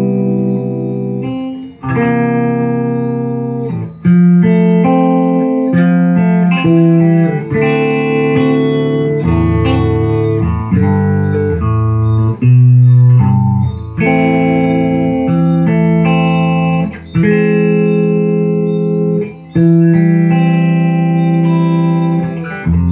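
Electric guitar played through a late-1970s Ampeg V4 tube amplifier head, now repaired and working. Chords and short runs of notes are played, each ringing out a second or two before the next.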